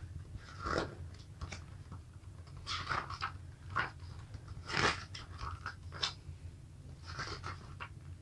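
Paper pages of a printed booklet being turned and handled: a series of short, soft paper rustles about a second apart.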